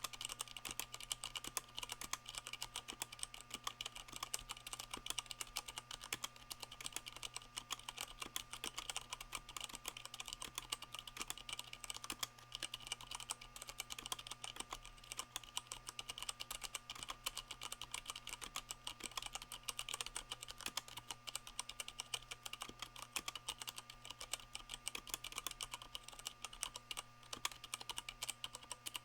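Continuous fast typing on a Leopold FC660M mechanical keyboard with Cherry MX Brown switches, fitted with rubber O-rings that cushion each key's bottom-out, making a dense, steady stream of key clacks.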